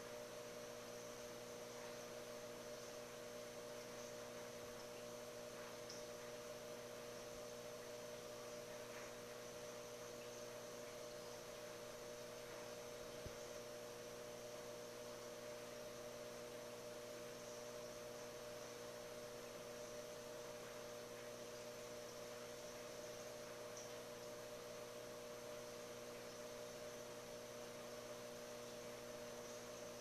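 Faint, steady electrical hum of running aquarium equipment, with a light hiss underneath.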